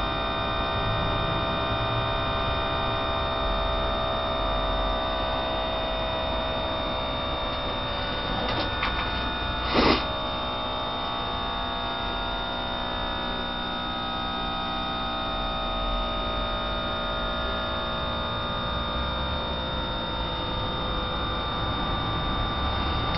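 Electric fuel pump running with the engine off, a steady hum and whine with many tones, some sagging slowly in pitch, as it pumps against the fuel pressure regulator during a fuel pressure test. A brief burst of noise about ten seconds in.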